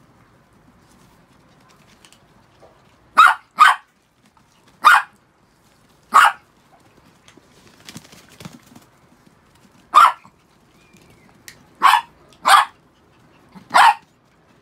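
Chihuahua barking: eight short, sharp yaps in irregular ones and twos, starting about three seconds in.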